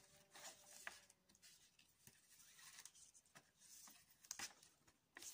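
Near silence with faint rustling and a few light ticks of fingers handling macrame cord while tying a hitch knot.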